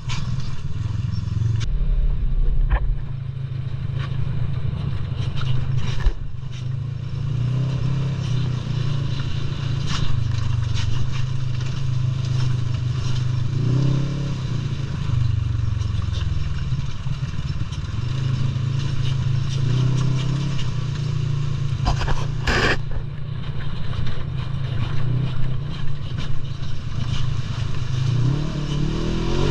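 ATV engine running under way, rising in pitch with the throttle a few times, with rattles and knocks throughout from the machine bouncing along a rough trail.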